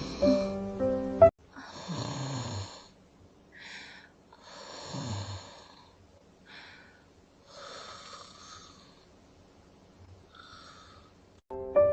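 A sleeping girl snoring: three snores about three seconds apart, each a rasping rumble that falls in pitch, with short airy wheezes between them. Music plays in the first second, cuts off, and comes back near the end.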